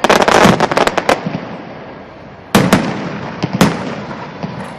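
Aerial fireworks exploding: a rapid volley of sharp bangs at the start, then two single loud bangs about a second apart, each trailing off into echo.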